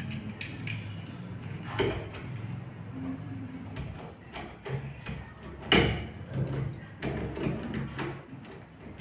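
Clicks and knocks of door-lock hardware being fitted into a door, with two louder knocks about two seconds in and just before the six-second mark.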